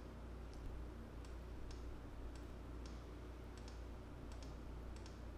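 Faint computer mouse clicks, about a dozen at irregular intervals of roughly half a second, over a low steady hum.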